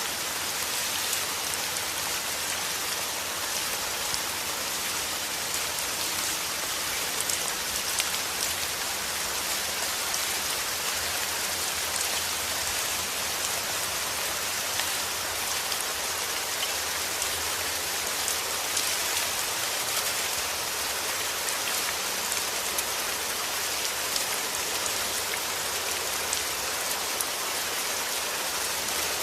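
Steady rain falling, a dense even hiss with countless fine drop patters, unchanging throughout.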